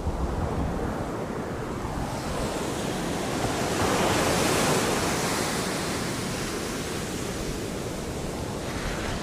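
Ocean surf on a beach: a wave builds to a rushing peak about four seconds in, then washes back and fades.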